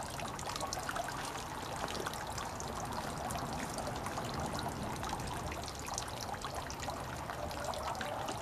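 Water trickling steadily, with a patter of small drips and splashes.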